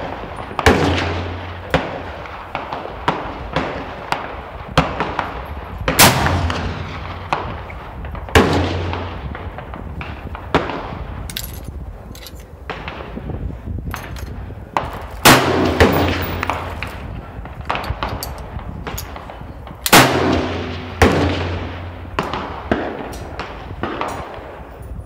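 Gunshots on an open shooting range: about five loud shots, each with a long fading echo, spaced several seconds apart. Many quieter, more distant shots crack in between.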